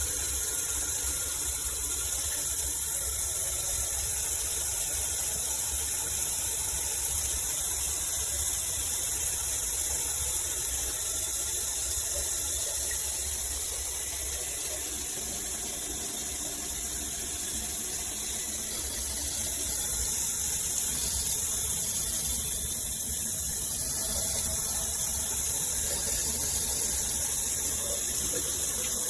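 Water spraying steadily from a G-Promise shower head as an even, high hiss. Its pressure-control valve has been taken out to raise the water pressure.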